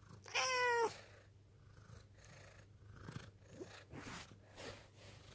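Domestic cat giving one loud, clear meow about half a second long, just after the start: a hungry cat demanding food. A few softer, brief noises follow near the end.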